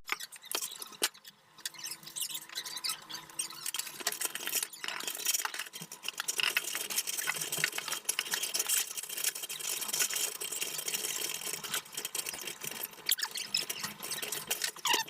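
Close-up hand work on metal faucet fittings during installation: a dense, irregular run of scraping, clicking and squeaking as parts are handled and screwed together.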